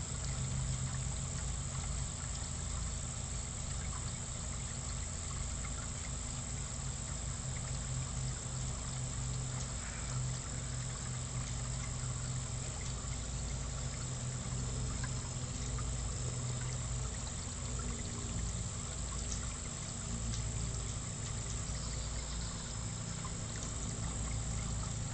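Steady trickling and running water of a koi pond, over a continuous low rumble.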